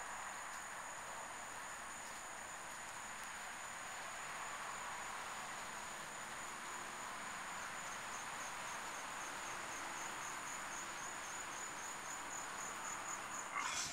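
Faint, steady, high-pitched insect chirring over a background hiss; from about halfway the high note pulses rapidly.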